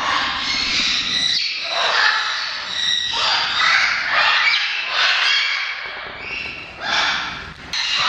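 Parrots squawking over and over, one loud call after another with brief gaps between them.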